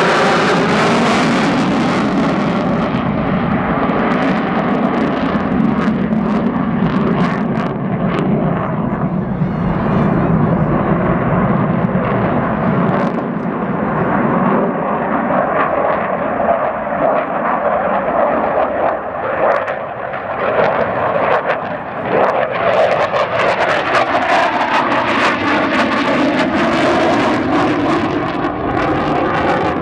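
Jet noise from a Dassault Rafale fighter flying a display. The engine noise loses its higher hiss a few seconds in as the jet moves off, then grows harsher and brighter again in the last several seconds as it comes back past, with sweeping tones as it passes.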